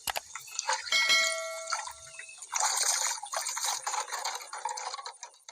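Water splashing and dripping, with a sharp click at the start and a brief ringing tone about a second in.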